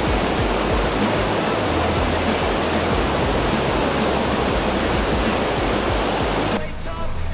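Waterfall pouring, a dense steady rush of falling water with music underneath. The water sound cuts off sharply about six and a half seconds in, leaving only the music.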